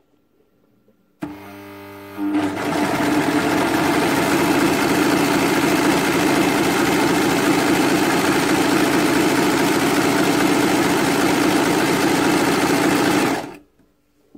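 Overlocker stitching along the edge of fabric strips. It starts slowly about a second in, picks up to full speed a second later, runs steadily, and stops about a second before the end.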